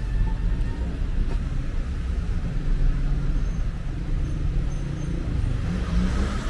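City street traffic noise: a steady low rumble of road vehicles, swelling a little near the end.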